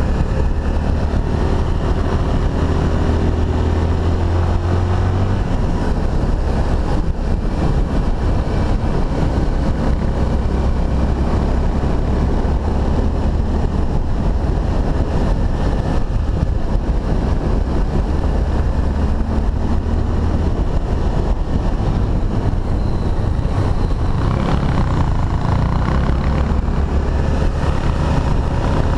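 Honda XRE300's single-cylinder four-stroke engine running steadily under way on a dirt road, its low note easing and picking up a few times with the throttle, under a constant rush of wind and road noise.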